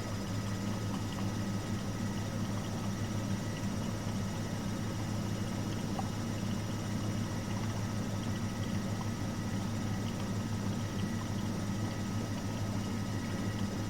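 Miele Professional WS5436 washing machine running steadily, a constant motor hum with a faint steady whine above it.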